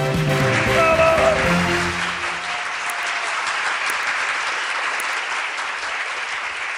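Applause, dense and steady, while the song's accompanying music fades out over the first two seconds or so.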